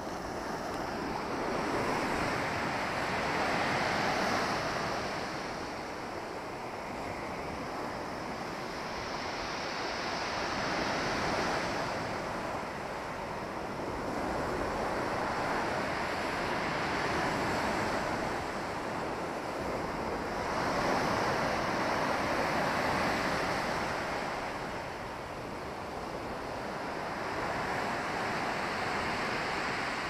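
Sea surf: waves breaking on the shore and washing back. The noise swells and fades about five times, roughly every six seconds.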